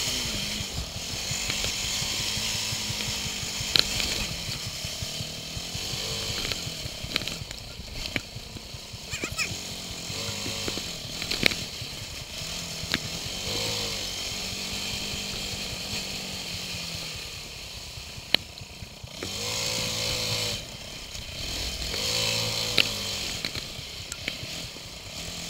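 ATV engine revving up and falling back again and again while being ridden over snow, under steady wind rush on the microphone. A few sharp clicks are scattered through.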